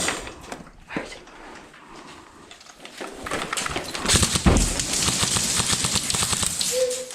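Airsoft gun firing rapidly on full auto: a few scattered clicks, then from about three seconds in a fast, even rattle of shots that grows louder.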